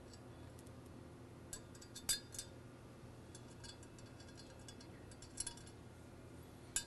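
A few faint, scattered metal clicks and clinks as small screws and parts are handled and fitted against a metal valve body, the loudest about two seconds in.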